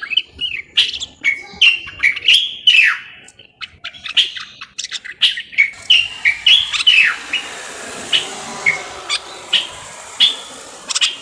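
Common bulbul singing in a run of short whistled chirps and phrases, several sliding downward, mixed with sharp clicks. A soft hiss lies under the calls from about halfway in.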